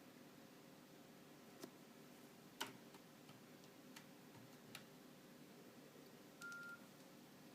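Faint clicks of a Nokia 6500 Slide's keys being pressed four times as its theme menu is worked, the second press the loudest, then a short single beep near the end.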